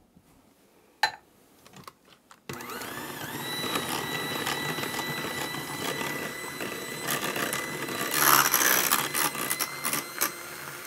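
Electric hand mixer starting up about two and a half seconds in, its motor spinning up to a steady whine as the beaters whip heavy cream and condensed milk in a glass bowl, the last stage of aerating a no-churn ice cream base. A single click comes about a second in, and the mixer gets louder about eight seconds in before easing off near the end.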